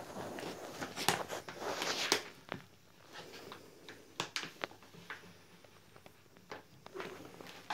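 Crinkly dry cat food bag rustling in irregular bursts as a cat pushes and moves its head inside it, with scattered short sharp clicks.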